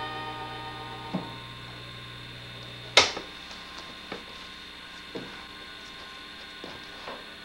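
Vacuum-tube electronic organ's amplifier humming steadily after the last notes die away, then one sharp click about three seconds in, after which the hum drops out, as when the organ is switched off. A few soft knocks follow.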